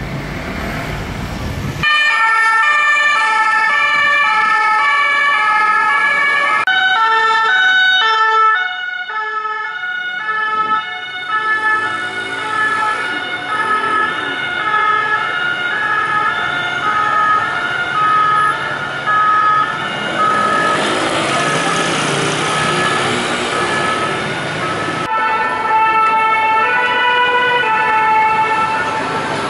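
French two-tone emergency-vehicle sirens alternating between two pitches about every half second as the vehicles move through city traffic, heard in several segments with abrupt cuts between them. At times two sirens sound at once, out of step. The first two seconds hold only street traffic noise.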